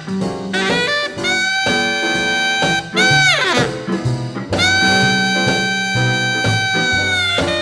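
Background music: an instrumental break in a vocal dance song, with a lead horn holding long notes and a swooping dip in pitch about three seconds in, over a band accompaniment.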